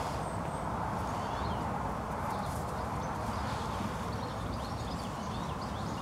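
Steady outdoor background hiss with faint, scattered bird chirps.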